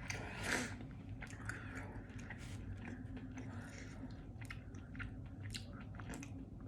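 Person chewing chicken nuggets close to the microphone: irregular clicking and crunching of chewing, with a louder bite about half a second in.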